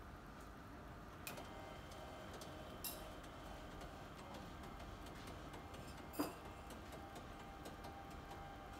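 A few sharp clicks from a health kiosk's front panel as its button is pressed, the loudest about six seconds in, over a faint steady electronic hum.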